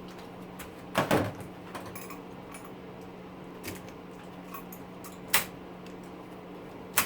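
Scattered clanks and knocks of a small scrap electric motor and tools being handled on a work surface, about five sharp knocks, the loudest a quick pair about a second in.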